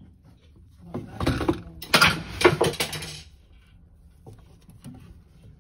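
Scraping and clattering of plastic and metal parts for about two seconds, starting about a second in, as a new diverter valve is pushed by hand into its housing in a Vaillant ecoTEC combination boiler.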